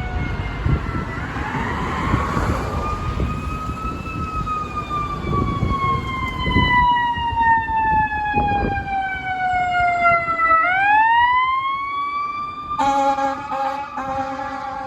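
Fire engine siren wailing, rising slowly, then sliding down over several seconds before sweeping back up. About 13 seconds in, the truck's air horn takes over with a steady blast that breaks off for an instant and sounds again. A low engine rumble runs under the first part.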